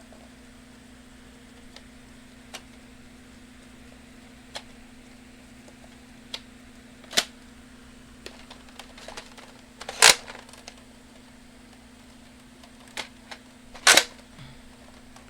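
Sharp plastic clicks and clacks of a Nerf blaster being handled and reloaded, scattered and irregular, with two louder clacks, one about two-thirds through and one near the end, over a steady low hum.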